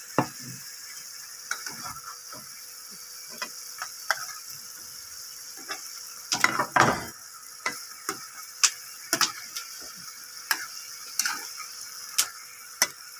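A spatula stirring and scraping through thick simmering curry in a frying pan, with scattered knocks and scrapes against the pan, the loudest about seven seconds in, over a steady sizzling hiss.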